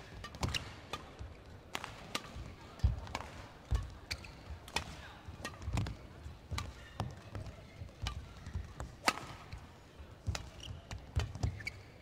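Badminton rally: sharp cracks of rackets striking the shuttlecock, roughly one a second, mixed with low thuds of the players' footwork on the court.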